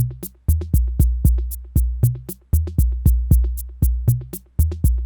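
Arturia DrumBrute analog drum machine playing a steady looping pattern: deep booming kicks with long low tails under fast, evenly spaced high ticks from the maracas and hats.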